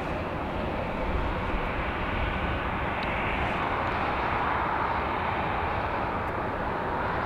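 Jet airliner engines running, a steady rushing noise that swells slightly in the middle.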